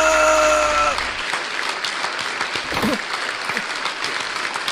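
A man's long, held scream at one steady pitch that sags and breaks off about a second in, followed by a steady rushing, applause-like noise.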